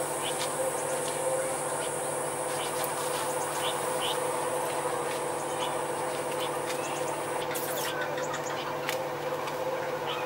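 A steady droning hum, with a high steady buzz over it that cuts off about seven and a half seconds in, and scattered short chirps throughout.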